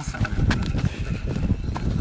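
Wind buffeting the microphone in a gusty low rumble, with a sharp click about half a second in and another near the end.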